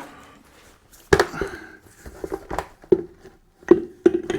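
Irregular sharp taps, each with a short low ring, as a new gearbox oil seal is knocked into its housing.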